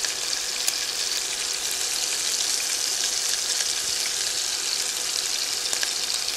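Pork chops searing in hot cooking oil in a skillet: a steady sizzle with a few scattered pops and crackles.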